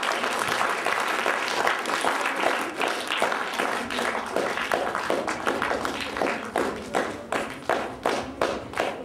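Audience applauding. About two-thirds of the way through, the scattered clapping falls into rhythmic clapping in unison, about two to three claps a second.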